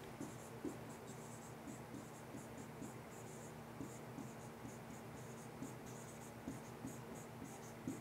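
Faint scratching and light tapping of a stylus writing on a tablet, in many short, irregular strokes.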